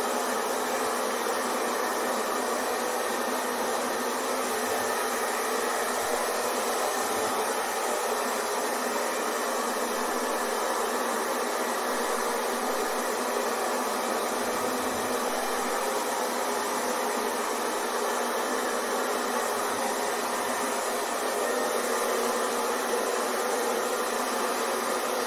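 Hair dryer blowing steadily, an even whooshing hiss with a faint motor whine, unchanging throughout.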